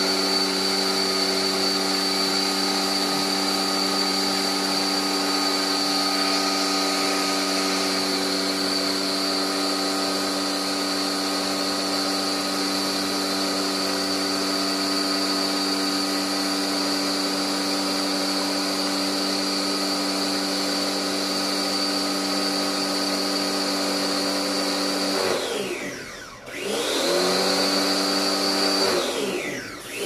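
Electric pressure washer's motor running with a steady whine. Near the end it winds down and spins back up twice.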